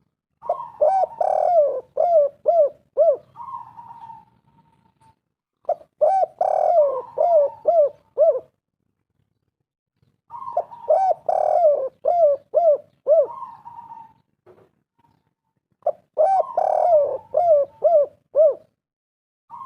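Spotted dove cooing in four bouts, one starting about every five seconds. Each bout is a quick run of rising-and-falling coos with a burry note near its end.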